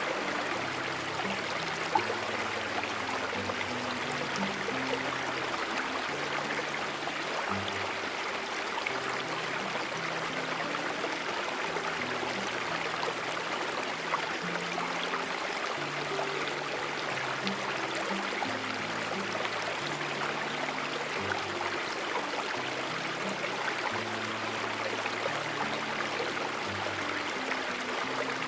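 Steady rushing of a running stream, with a slow line of held low music notes underneath.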